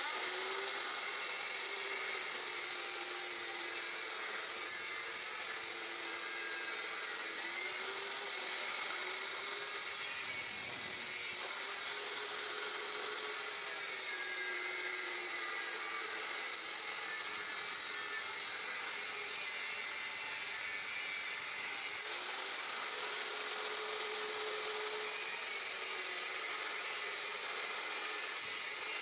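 Power tool cutting into the steel shell of a scroll compressor. It runs steadily, with a motor tone that wavers in pitch as the load changes.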